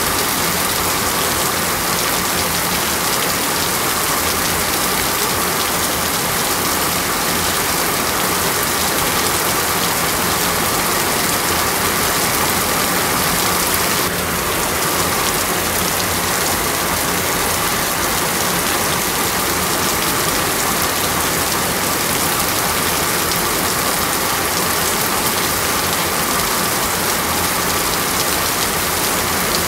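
Steady rain hiss on a wet street, even and unbroken throughout.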